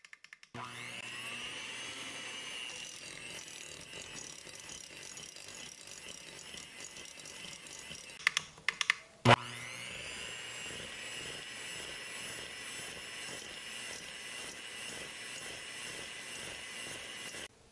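Electric hand mixer starting with a rising whine and running steadily, its wire beaters creaming butter and sugar in a glass bowl. About eight seconds in come a few clicks and a sharp click, then the motor winds up again and runs on until it cuts off near the end.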